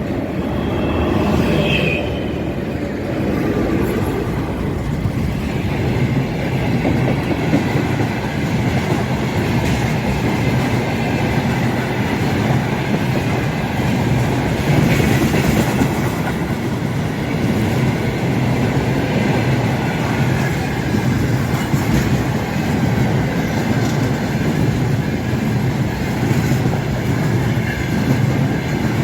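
Freight train rolling past at speed, a steady loud rumble of wheels on rails with the clickety-clack of wheels over rail joints.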